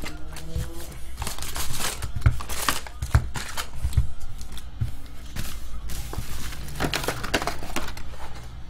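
Wrapped trading-card packs rustling and crinkling as they are pulled out of a cardboard hobby box by hand and set down in stacks, with many short sharp rustles and light knocks.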